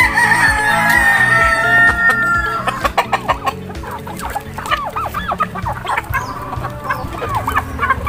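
A rooster crows once, one long call lasting about two and a half seconds at the start. Then a flock of chickens clucks and chatters in short calls, with quick taps as they peck feed from a hand.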